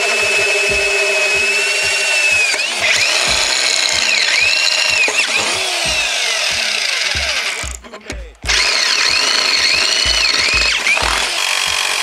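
Drill press boring holes in a metal bracket plate: a steady motor whine whose pitch dips and recovers over and over as the bit bites. It cuts out for a moment about 8 seconds in, then starts again. Near the end a jigsaw starts cutting the plate.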